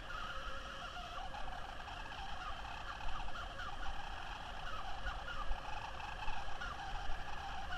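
Remote-control toy car's electric drive motor and gears whining steadily as it drives, with short faint chirps over the whine.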